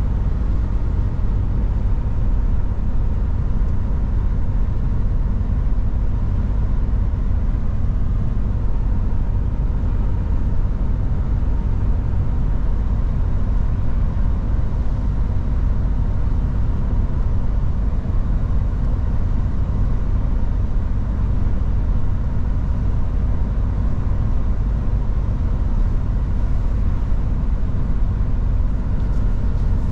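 Mercedes-Benz Actros truck being driven: a steady low rumble of engine and road noise at an even pace, with a faint steady whine above it.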